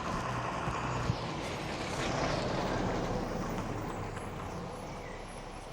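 Motor vehicle traffic: an engine and road noise swelling about two seconds in, then fading as it goes by.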